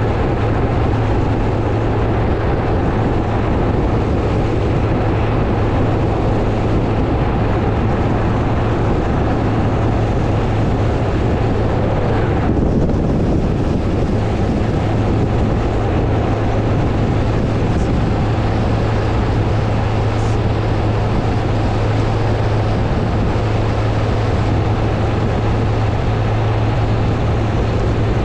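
A vehicle driving steadily on the road: engine and road-and-wind noise with a constant low hum. The hiss briefly thins about halfway through.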